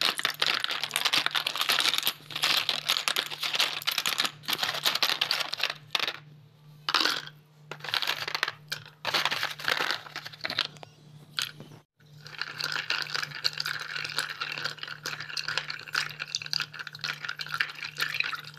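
Broken slate pencil pieces clattering and clinking as a hand rummages through them in a plastic box, in stretches with short pauses. After a short break about twelve seconds in, pieces are rattled and stirred in a plastic bowl with water, a steadier run of close clicks. A faint steady low hum sits underneath.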